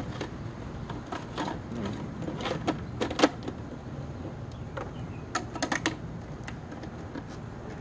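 Scattered clicks and knocks of hard plastic as a bagless vacuum's dust bin is handled and emptied, with a quick run of clicks a little past the middle.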